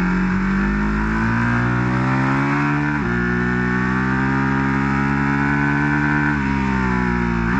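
Ducati 1299 Panigale S's 1285 cc Superquadro V-twin under hard acceleration, its pitch rising through second gear and dropping sharply at the upshift to third about three seconds in. It climbs again, then drops once more about six and a half seconds in.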